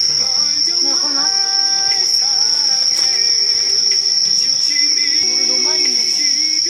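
A steady, shrill insect chorus, like crickets trilling, with a soft background-music melody of held notes stepping in pitch underneath.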